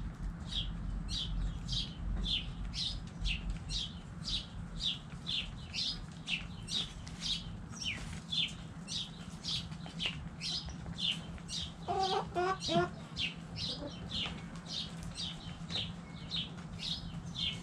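A small bird chirping over and over, short high chirps at about two or three a second, with a hen giving a few short clucks about twelve seconds in, over a low steady hum.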